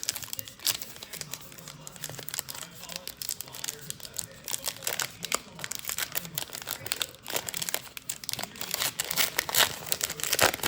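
Baseball card pack wrapper crinkling and tearing as it is opened and handled: a run of short, sharp crackles that gets busier near the end.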